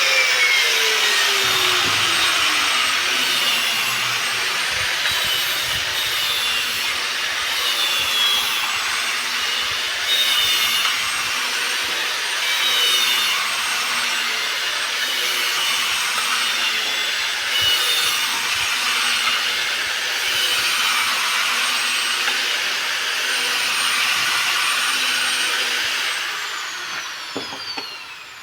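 Electric power tool working stone, a steady rasping grind over a high motor whine. Near the end the whine falls in pitch and the sound dies away as the tool winds down.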